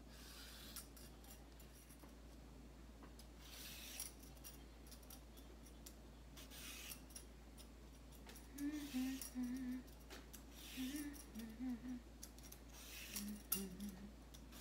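Vegetable peeler scraping the skin off a carrot in short, irregular strokes, one every second or two. In the second half, brief soft humming-like voice sounds come in between the strokes.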